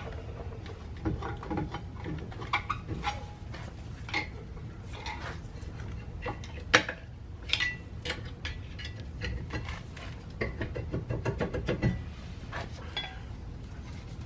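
Metal clinks, taps and scrapes as a car's rear brake drum is worked loose from the hub with a screwdriver and pulled off, with one sharper knock about 7 seconds in.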